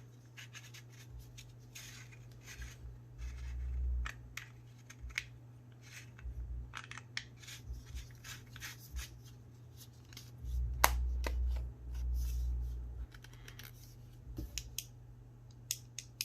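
A small flashlight multi-tool being handled: scattered clicks and light scrapes of its parts, with a few longer dull bumps and rubs of handling near the middle and later on.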